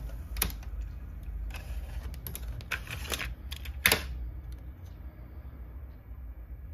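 Mechanical clicks and clunks from a Pioneer KEH-1930R car cassette radio as its tape mechanism and front-panel buttons are worked, with the loudest clunk about four seconds in. A steady low hum runs underneath.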